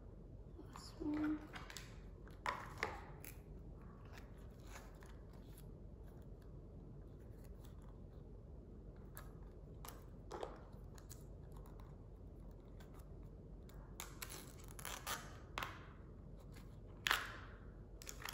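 Small crinkles, snaps and tearing of thin plastic wrap being picked and peeled off a miniature toy item from a Mini Brands capsule, with light clicks of the plastic capsule pieces. The sounds come in short scattered bursts, a cluster of them near the end with the sharpest snap just before it ends.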